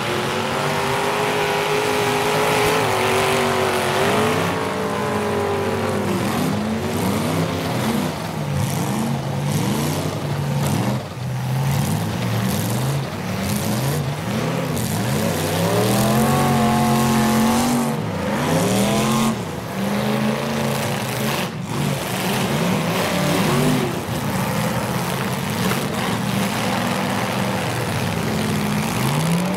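Several full-size demolition derby cars' engines revving up and down as they drive through mud, with a few sharp knocks of cars hitting each other.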